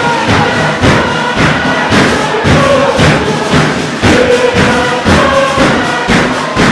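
Tuvaluan fatele: a large choir of voices singing held, chant-like lines over a steady pounding beat of hand-struck percussion, about two to three strokes a second.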